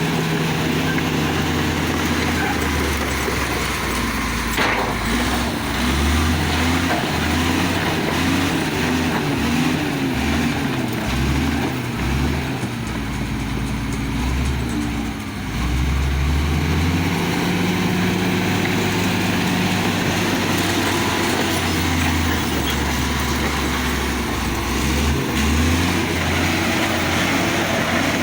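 Komatsu D65E bulldozer's diesel engine working, its note rising and falling repeatedly as it revs and takes load, over a steady mechanical clatter. There is one sharp knock about four and a half seconds in.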